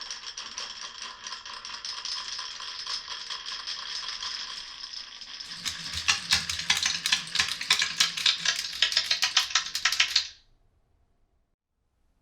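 Glass marbles running down a wooden marble run: a steady rolling rumble, then a rapid clatter of many clicks and rattles for about four seconds that cuts off abruptly near the end.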